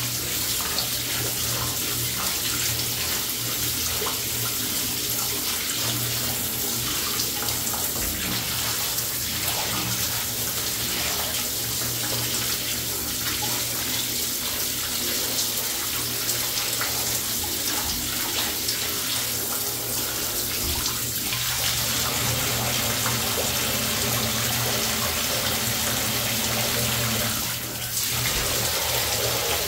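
Handheld shower sprayer running steadily into a bathtub, the spray splashing into standing dirty water, with a brief dip near the end.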